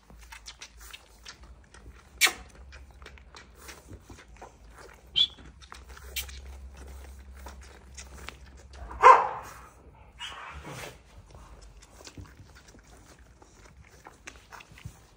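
Australian cattle dog and her puppies scuffling in straw and sawdust bedding, with many small rustles and clicks. A short high squeak comes about five seconds in, and a loud, short bark about nine seconds in, followed by a weaker vocal sound a second later.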